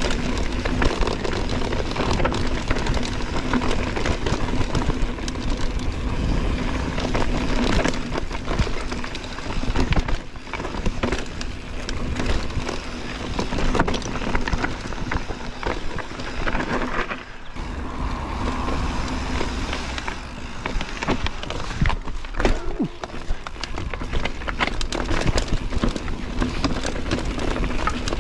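Mountain bike rolling down a dirt trail: tyres on dirt and stones with constant rattles and knocks from the bike over bumps, and wind buffeting the microphone.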